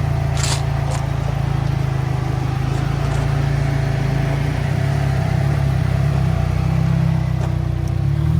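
A 2017 Subaru WRX's turbocharged 2.0-litre flat-four running steadily as the car drives slowly, a continuous low drone. There is a single sharp click about half a second in.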